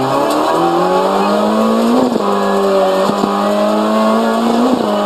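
Renault Clio RS N3 rally car's two-litre four-cylinder engine pulling at high revs, heard from inside the cabin: the pitch climbs, dips about two seconds in as it shifts up, then holds steady. A few sharp knocks cut through the engine note.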